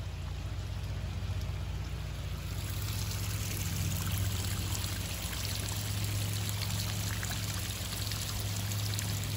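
Water showering down from a watering spray onto leafy garden plants and soil, a steady hiss of spray and pattering drops that grows louder about three seconds in.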